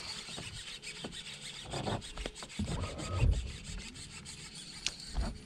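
Irregular rubbing and scraping with scattered soft knocks, and a dull thump a little after three seconds in.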